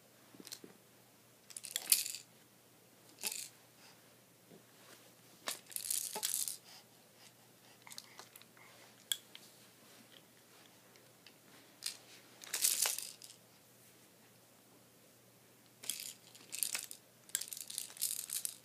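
Scattered bursts of rustling and crinkling handling noise from a baby being moved about on a quilt and handling plastic toys, with the loudest bursts about two seconds in and near the middle.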